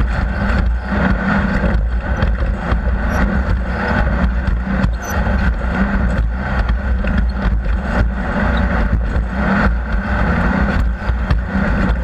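Off-road race vehicle's engine running hard, with wind noise and frequent knocks and rattles throughout.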